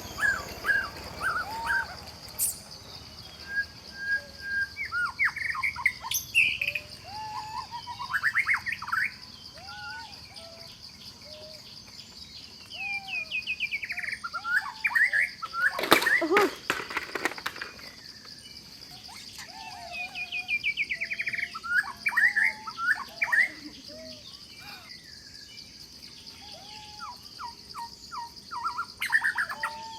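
Forest ambience: several birds chirping and calling in short runs over a steady high insect drone. About halfway through there is a loud, noisy burst lasting a second or so.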